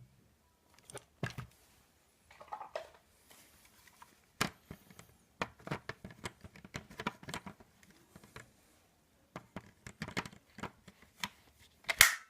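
Scattered light clicks, taps and rustles of something being handled, with a sharper knock about a second before the end.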